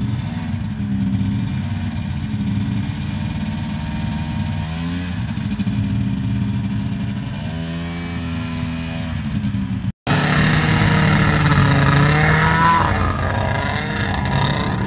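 Two-stroke snowmobile engine running and revving up and down, its pitch rising and falling as the throttle changes. About ten seconds in the sound cuts out for a moment and comes back louder and closer.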